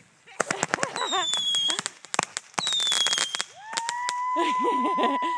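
A 25-shot consumer firework cake firing: volleys of rapid crackling reports, each with a short falling whistle. Near the end comes a long steady whistle that drops in pitch as it dies.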